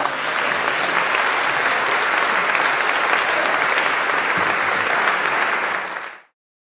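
Audience applauding, a dense, steady clapping that cuts off abruptly near the end.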